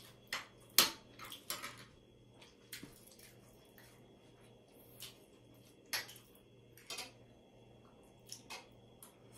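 Metal fork and spoon clinking and scraping against ceramic plates in scattered short clicks, the loudest about a second in.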